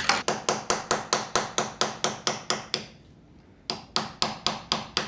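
Small hammer tapping a drift against a propshaft universal joint, working its circlip loose: sharp metal-on-metal taps about four or five a second, a run of about a dozen, a pause of about a second, then about six more.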